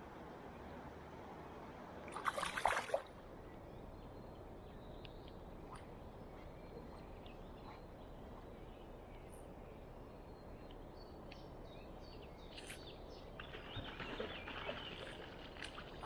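Steady sound of river water, with a short splash about two seconds in and a longer spell of splashing near the end.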